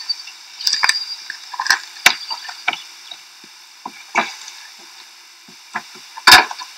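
Scattered light clicks and knocks as a child moves about in a car's driver's seat, handling the steering wheel and door, with one louder knock near the end. A faint steady hum and hiss lie under them.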